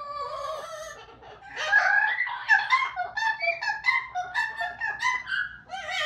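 Amazon parrots calling loudly: pitched squawks and whistled calls, breaking from about a second and a half in into a quick run of short, chattering notes.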